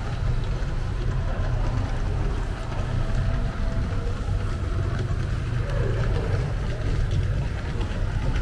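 Model trains running on a large model railway layout: a steady low rumble of the locomotives' motors and wheels on the track.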